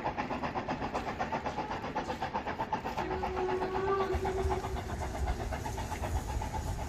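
Narrow-gauge steam locomotive working uphill in the distance, its exhaust beating in a fast, even chuff; about three seconds in, a steam whistle sounds one steady note for about a second and a half.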